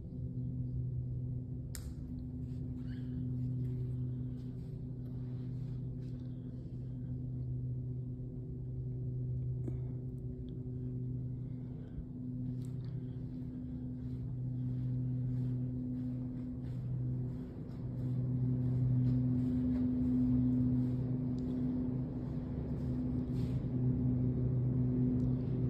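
A steady low hum that slowly swells and fades, with a few faint clicks over it.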